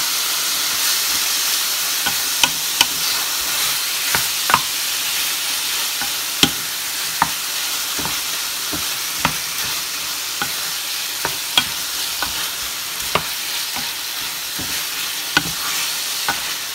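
Diced chicken breast sizzling as it sears in hot oil in a nonstick frying pan, stirred with a wooden spatula that taps and scrapes against the pan at irregular moments over the steady sizzle.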